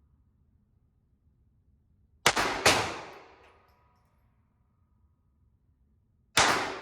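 Walther PPK/S .22 LR pistol firing CCI Mini-Mag rounds: two quick shots a few tenths of a second apart, then a third about four seconds later, each ringing out with a long echoing decay.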